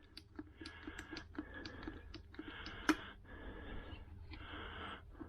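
Faint clicks and a hiss, stroke after stroke, from a hand oil pump being worked as gear oil is pumped into the gearbox filler hole.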